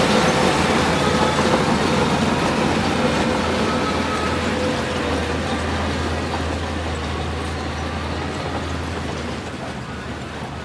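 Heavy diesel construction machine running steadily with a low engine hum, gradually fading as it grows more distant.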